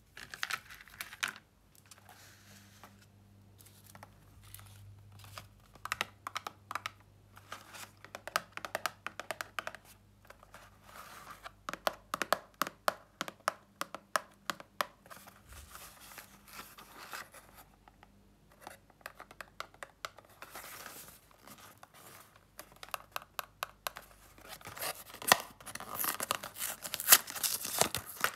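Hands working a cardboard snack box and its foil inner pouch give a long run of crinkles, crackles and rips. These come thicker and louder over the last few seconds as the box is torn open and the pouch pulled out. In the first second or so there is a short burst of crackles as a square biscuit is snapped in half.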